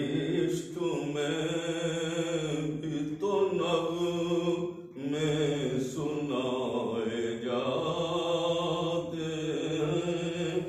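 A man's solo voice chanting a naat, a devotional poem in praise of the Prophet, unaccompanied, in long held melodic phrases with a few short breaks for breath.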